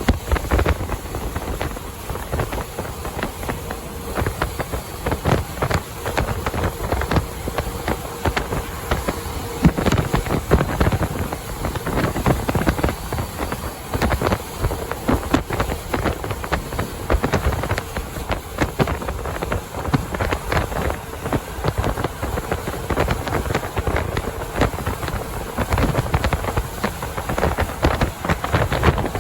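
Wind and road noise of a truck running at highway speed, with wind buffeting the microphone in frequent gusts.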